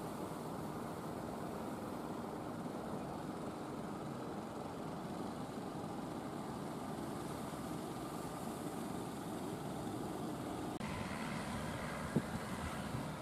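Engines of wooden fishing boats running steadily in a low drone, mixed with the wash of waves, with a sharp thump near the end.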